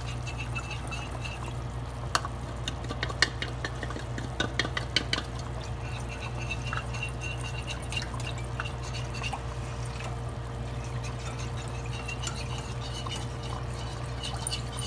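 A spoon stirring cornstarch into water in a glass bowl to make a slurry, clinking lightly against the glass a number of times from about two to five seconds in. Under it, a pot of sauce bubbles at a full boil over a steady low hum.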